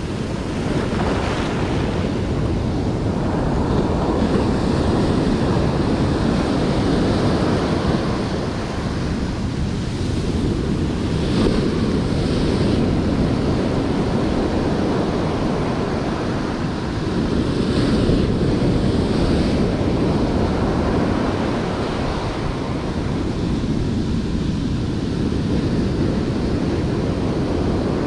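Ocean surf breaking and washing up the sand, a steady rushing wash that swells and eases as each set of waves comes in.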